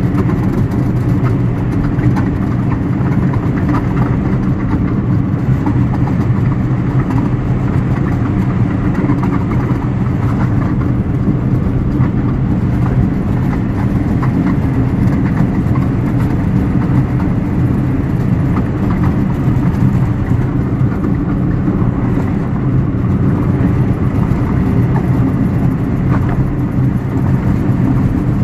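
A car driving at a steady speed: a constant, unbroken drone of engine and road noise.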